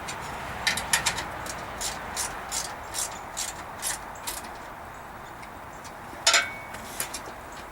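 Hand ratchet wrench clicking in a run of short, evenly spaced clicks, then a single louder metallic click about six seconds in.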